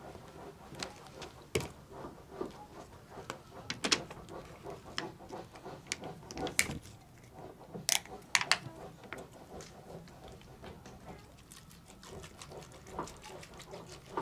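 Potatoes being peeled by hand: short, irregular scraping strokes of a blade, with a few sharper clicks and knocks.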